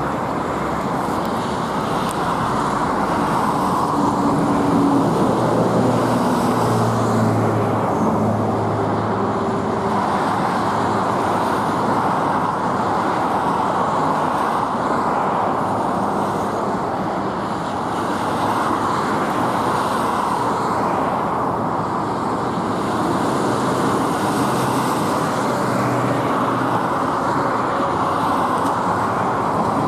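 A car on the move: steady engine and road noise.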